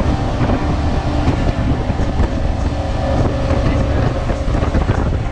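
Twin large outboard engines running hard on a center-console boat at planing speed, with water rushing along the hull and wind buffeting the microphone.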